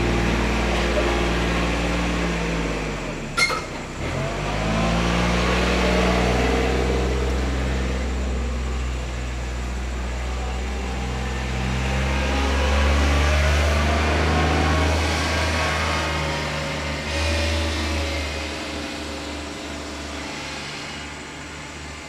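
Kubota's engine running and driving off, its note shifting several times and fading away toward the end. A sharp click about three seconds in.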